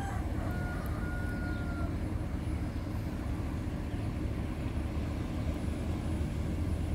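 Steady low rumble of a diesel railcar approaching along the track.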